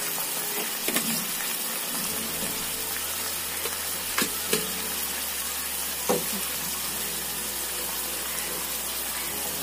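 Watery spice masala boiling in a pan, a steady bubbling sizzle with a few sharp pops about one, four and six seconds in. The masala is being cooked down with water and salt before the boiled black-eyed peas go in.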